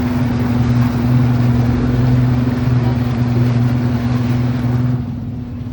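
Boat engine running steadily with a low hum, under a broad rushing noise of wind and water that drops away about five seconds in.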